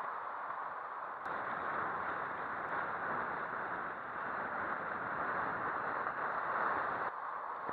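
Storm wind and rough sea: a steady rush of noise. At first it is seawater from a storm surge washing across a jetty deck; about a second in it changes abruptly to a louder rush of wind and surf in the open.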